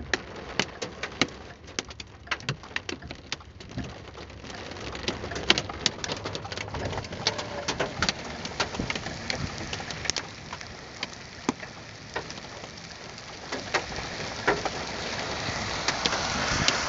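Hailstones striking a car's body and glass: a rapid, irregular patter of sharp clicks and taps over a hiss of rain that grows louder near the end.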